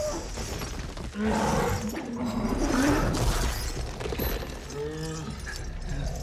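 Film battle sound mix: creature snarls and shrieks over clashing weapons and crashing impacts. A short low growl comes about five seconds in.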